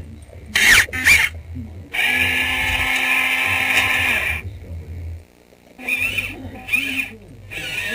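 Small electric drive motors of a VEXplorer robot whirring: a couple of short whirs, then one steady run of about two and a half seconds, then more short whirs near the end.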